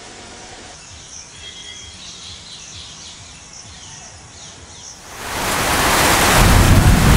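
Faint chirps of small birds over quiet outdoor ambience. About five seconds in, a loud, steady rush of rain and wind from a thunderstorm fades in, with wind rumbling on the microphone.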